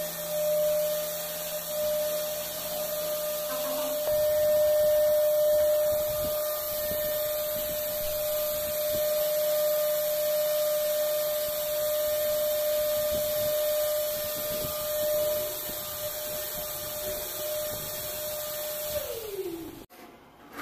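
Wet/dry canister vacuum cleaner running steadily, its motor whining over the noise of suction as the wand is worked over a carpet. Near the end the motor winds down, its pitch falling, and the sound cuts off.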